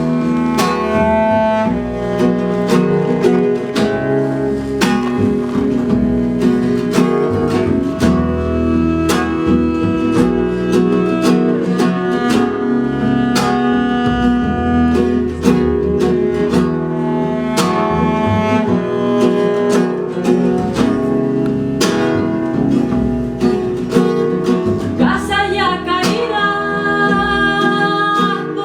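Live acoustic ensemble music: plucked guitar notes over sustained bowed-string tones, with a singing voice coming in near the end.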